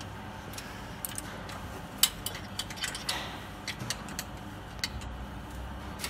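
Irregular metallic clicks and taps as the screws holding a bottle washing machine's guide wheels are tightened by hand, the loudest click about two seconds in and a quick cluster of clicks around three seconds.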